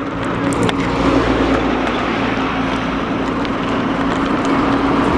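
Steady wind and road noise on a handlebar camera while cycling on tarmac, with a motor vehicle's engine humming steadily underneath.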